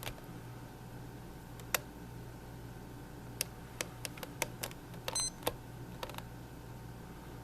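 Plastic buttons on a Mattel Barbie clock radio being pressed to set the alarm time: about ten sharp clicks, bunched between three and six and a half seconds in, with a brief high beep about five seconds in, over a steady low hum.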